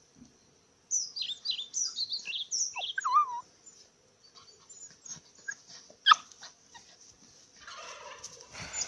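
Norwegian Elkhound puppy giving a quick run of short, high-pitched whines and squeals while playing, then a single sharp yip about six seconds in.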